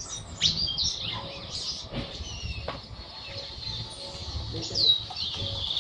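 Caged charlatán songbird singing: a run of varied chirps and short whistled notes, with a loud down-slurred whistle near the end.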